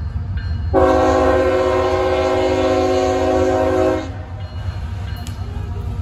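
Horn of CSX freight locomotive 3359 sounding one long blast of several notes at once, lasting about three seconds and starting about a second in. A low rumble from the approaching train runs underneath.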